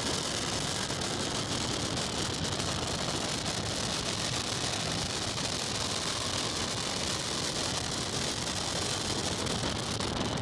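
A car with a 4.6-litre V8 running, heard as a steady rushing hiss with no clear engine note.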